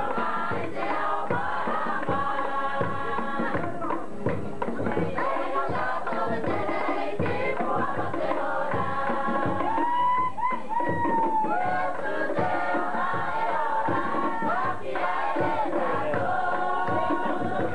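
Cook Islands dance music: a group of voices singing and chanting together over a steady drum beat.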